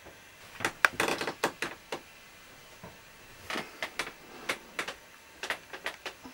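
Irregular clusters of sharp clicks and knocks, in three bunches with short pauses between them.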